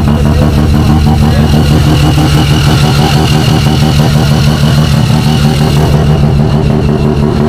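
Mazda rotary engine running loud and close at steady revs, its fast firing pulses giving a buzzy, even drone.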